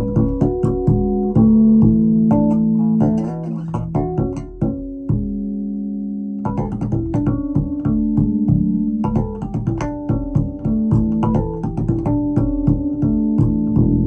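Keyboard music with piano-like struck notes over a held bass line, reproduced through Vandersteen 2Ce loudspeakers driven by a Sugden IA4 amplifier. It thins to a few held notes about five seconds in, then picks up again.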